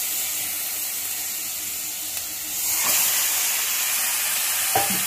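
Wet raw chicken livers sizzling and hissing as they hit hot oil and fried onions in a kadai. The steady hiss swells about two and a half seconds in.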